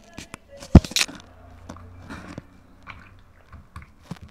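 Close handling noises: a sharp thump just under a second in, then a short crackling rustle and scattered small clicks.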